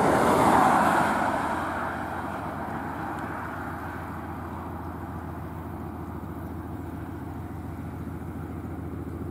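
A passing car's road noise fades over the first two seconds, leaving the steady low hum of the Lxd2 narrow-gauge diesel locomotive's engine as it runs light along the track.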